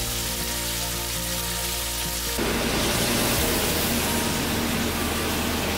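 Beef steaks searing in a frying pan, a steady sizzle under soft background music. A little over two seconds in, it changes to a louder, even hiss.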